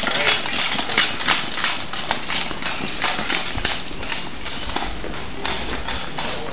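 Quick, regular footsteps on pavement, about three steps a second, with a low rumble in the middle.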